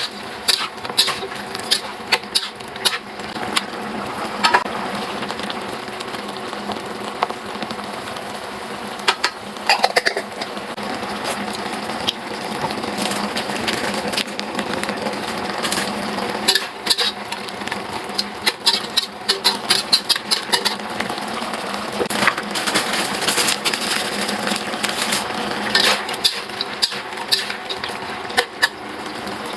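Kitchen cooking sounds: metal utensils clinking and knocking against pots and dishes at irregular intervals, over a steady hiss.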